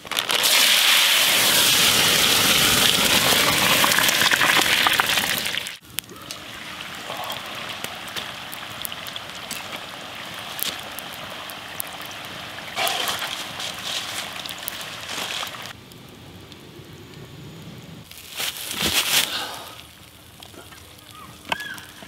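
Fries dropped into hot oil in a cast-iron Dutch oven, the oil sizzling loudly for about six seconds. It then settles into a quieter, steady crackling fry, with a brief louder noise near the end.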